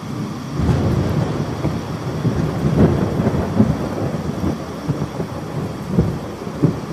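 Thunder rumbling over steady rain. The rumble swells about half a second in, with its loudest cracks around the middle.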